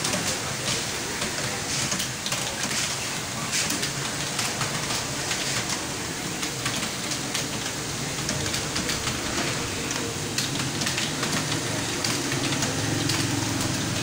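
Fast typing on a desktop computer keyboard: a dense, irregular stream of keystroke clicks at a test pace of about 70 words a minute, over a low steady hum.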